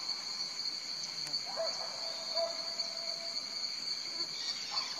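Rainforest insects droning on one steady high pitch without a break, with a faint lower whistle a little after a second and a half in.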